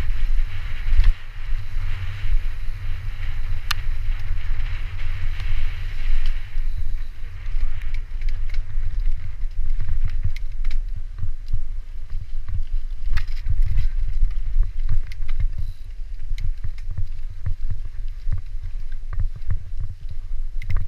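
Mountain bike riding fast down a dirt singletrack: wind buffeting the microphone with a gusting low rumble, tyres hissing over dry leaves for the first several seconds, then scattered clicks and rattles from the bike over the bumps.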